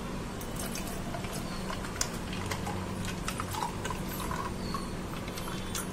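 Chilled milk poured in a thin stream from a steel vessel into a glass jar over ice and coffee, with scattered small clicks through the pour and a steady low hum underneath.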